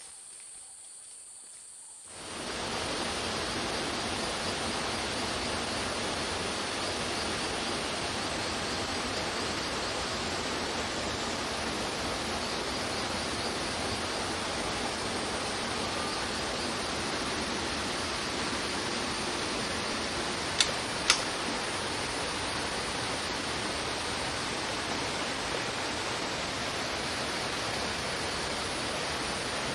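Steady rushing of a rocky forest stream, coming in about two seconds in after quieter forest sound. Two sharp clicks, half a second apart, about two-thirds of the way through.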